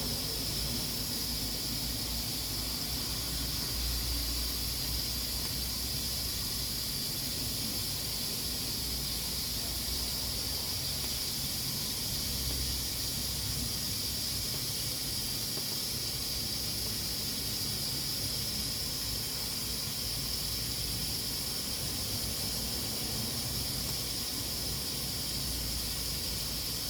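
Pressure cooker hissing steadily as steam escapes from its valve under full pressure, an even high hiss that does not let up.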